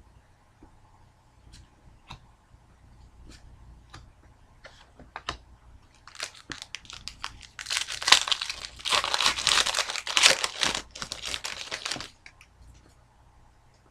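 Scattered light taps and clicks, then about six seconds in several seconds of loud crinkling and tearing from a foil trading-card pack wrapper being opened, which stops about twelve seconds in.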